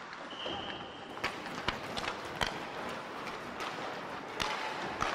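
Ice hockey players skating hard in a speed race, skate blades scraping the ice, with several sharp clicks of sticks and pucks. A short steady high tone sounds about half a second in.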